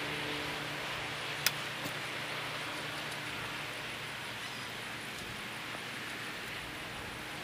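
Steady rushing background noise with a low hum that fades out in the first second or so. A single sharp click sounds about one and a half seconds in, and a fainter one follows shortly after.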